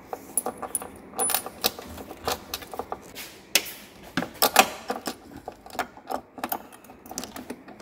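Quick, irregular metallic clicks and clinks from a nut and washer being threaded onto a rock light's stud and a wrench fitted to snug the nut down.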